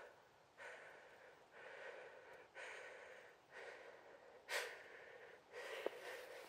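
A person breathing close to the microphone, faint hazy breaths about once a second, one stronger breath about four and a half seconds in.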